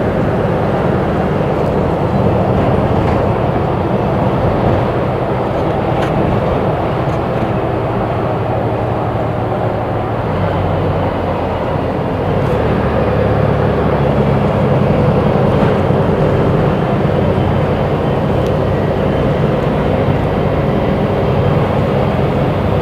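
Engine of a Volvo B290R city bus with a Voith automatic gearbox, running under way. Its note dips slightly about ten seconds in, then rises and gets louder as it pulls again.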